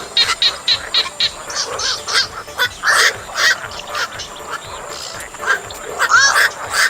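Black-crowned night herons calling: a quick run of short, evenly spaced calls in the first second or so, then louder, longer calls at irregular intervals, a few of them overlapping.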